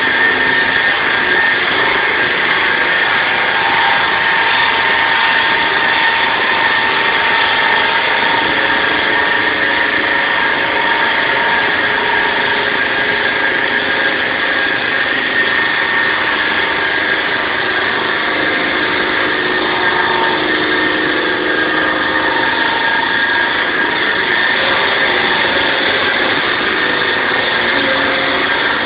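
SAW160 concrete saw running steadily: a continuous loud machine noise with a steady high-pitched whine over it.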